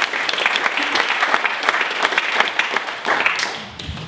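Audience applauding: a dense patter of many hands clapping that dies away about three and a half seconds in.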